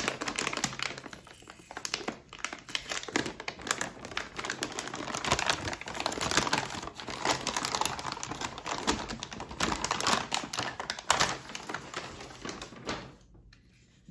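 Packaging crinkling and rustling with many quick, irregular clicks and taps as a graphics card is unwrapped by hand. It stops about a second before the end.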